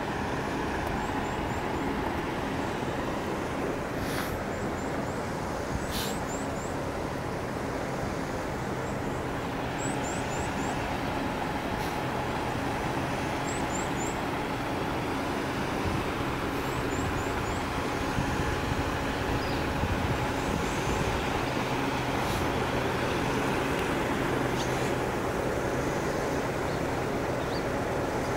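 Steady drone of idling diesel trucks parked in a truck lot: a constant low hum with a steady higher tone over it. Short high chirps come in quick threes every few seconds.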